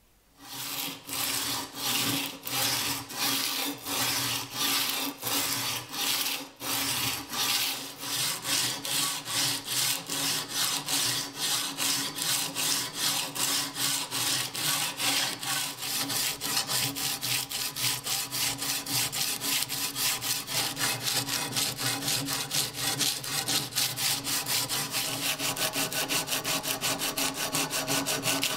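Strip of abrasive paper rubbed back and forth by hand over the rusty iron of a WWI German Ersatz bayonet, scouring off rust. The strokes are even and rasping, about two a second at first and quickening to three or four a second.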